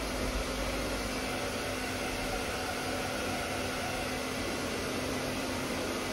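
Corded handheld hot-air blower running steadily: a continuous rush of air over a constant motor hum, aimed at a statue.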